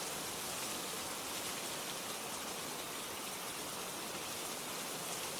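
Steady rain falling, a soft even patter with no breaks.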